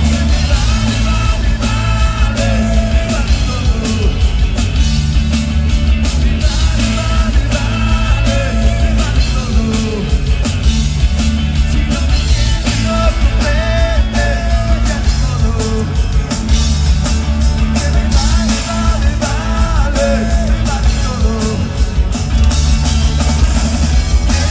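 Live rock band playing loud: a drum kit driving a steady beat under electric guitars and bass.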